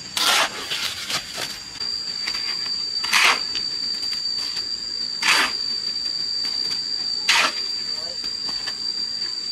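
A steady high-pitched whine, with four short scraping strokes spaced two to three seconds apart.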